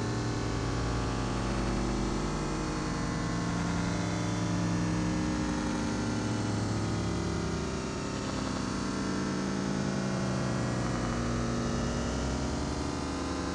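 Dense, droning synthesizer noise: low held notes that shift every couple of seconds under a steady wash of hiss.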